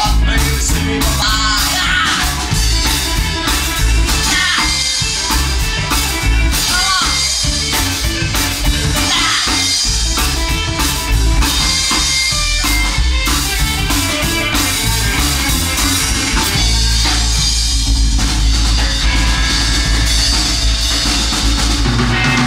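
Rock and roll band music with a steady drum-kit beat and guitar.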